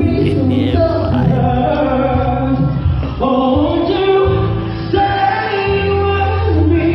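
Background music: a song with sung vocals over a steady low beat.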